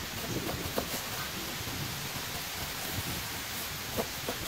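Kitchen knife slicing a white onion into rings on a wooden cutting board: a few soft knocks as the blade meets the board, over a steady hiss of background noise.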